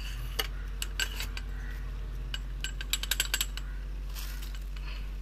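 Metal clicks and clinks from the damper rod shifting inside a motorcycle front fork's chrome steel tube as it is fitted: scattered single ticks, then a quick run of about half a dozen near the middle.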